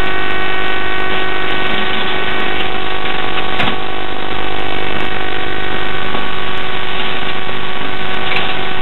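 A loud, steady buzzing hum over a dense hiss, unchanging throughout, with a single sharp click about three and a half seconds in.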